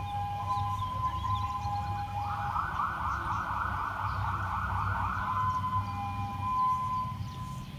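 Fire engine siren sounding a two-tone high-low pattern. About two seconds in it switches to a fast warbling yelp for a few seconds, then goes back to the high-low tones. A steady low rumble runs underneath.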